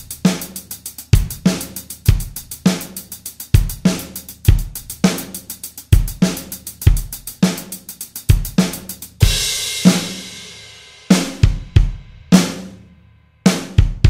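Electronic drum kit played with a PDP 502 double bass drum pedal on the kick pad: a steady beat of kick drum, snare and hi-hat. A crash cymbal hit about nine seconds in rings out for about two seconds, and a few quick double kick strokes come near the end.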